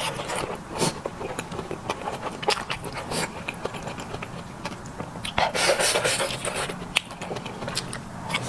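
Close-up eating sounds: chewing and slurping instant noodles, with many small wet mouth clicks and one longer stretch of slurping a little past the middle.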